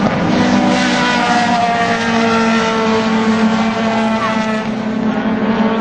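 Race car engines running hard on the circuit. Several engine notes sound at once at different pitches, some rising as the cars accelerate.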